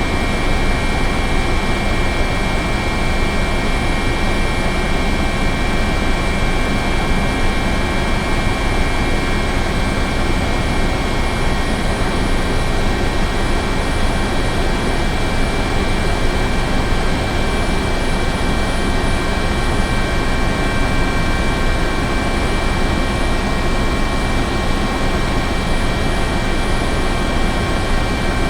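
Helicopter running steadily, its rotor noise under a turbine whine of several steady high tones, holding an even level with no rise or fall.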